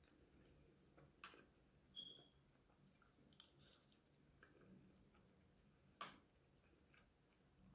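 Faint eating sounds: a few scattered small clicks and smacks from chewing and a fork against the food, the sharpest about six seconds in, over near silence.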